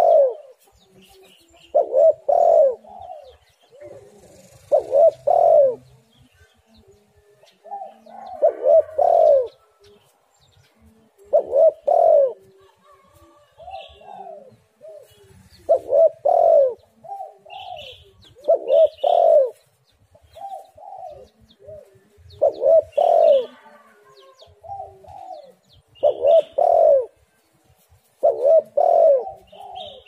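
Spotted dove cooing in repeated short phrases of two or three low coos, a new phrase every two to three seconds. Faint high chirps come between the phrases.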